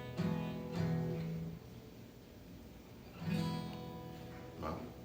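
Acoustic guitar being strummed: a couple of chords near the start ring out, then another chord about three seconds in rings and fades.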